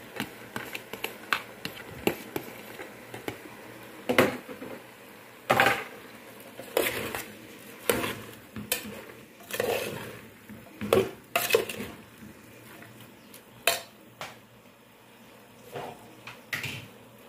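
A metal spoon clinking and scraping against an aluminium pressure-cooker pot while chopped vegetables are stirred in it, in irregular knocks.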